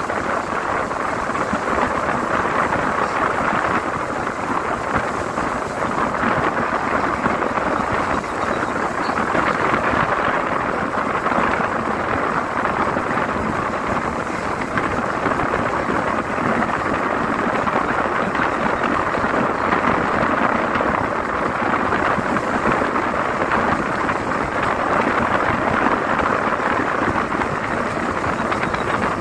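Steady rush of wind and road noise inside a moving vehicle travelling along a road.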